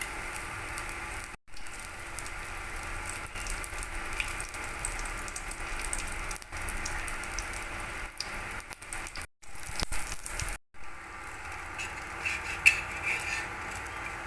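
Gram-flour fritters (besan bora) sizzling and crackling as they fry in oil on a tawa, a steady hiss with small pops. The sound drops out abruptly for a moment three times.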